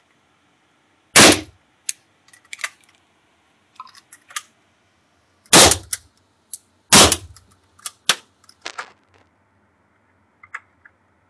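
AK-47 rifle fired single shots, three loud reports a few seconds apart, the second and third closer together, each ringing briefly in the enclosed range. Fainter sharp cracks and clicks fall between the shots.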